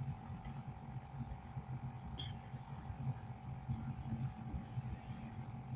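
Steady low hum with an uneven throb, over a faint constant high-pitched tone: background machine or room noise. A faint tick about two seconds in.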